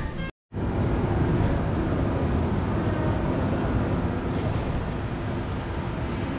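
Background music cuts off abruptly less than half a second in, followed by steady outdoor city noise with a low traffic rumble.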